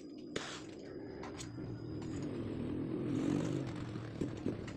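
Gas welding torch flame burning with a steady low rumble and hiss while a steel funnel for a motorcycle exhaust baffle is welded. There is a sharp tick about half a second in, and the rumble swells a little midway.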